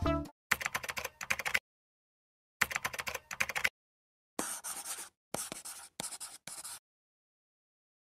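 Background music cuts off at the start. Then four short bursts of scratchy pen-scribbling sound effect follow, with silence between them.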